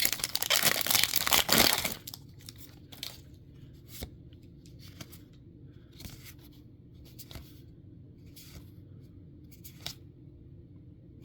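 A foil Magic: The Gathering play booster wrapper being torn open, loud crinkly tearing for about two seconds, followed by soft, scattered flicks as the cards inside are handled.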